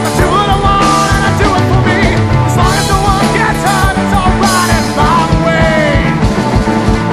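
Rock band playing an instrumental passage: electric bass holding low notes under drums and cymbals, with a high lead line of bending, wavering notes on top.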